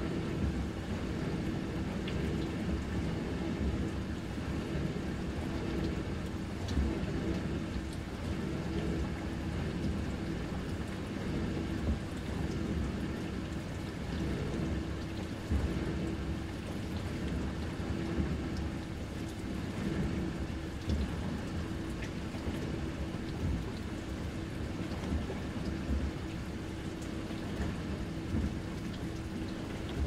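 Dishwasher running: water spraying and splashing inside the tub, steady throughout, over a low rumble and a constant hum, with faint scattered ticks.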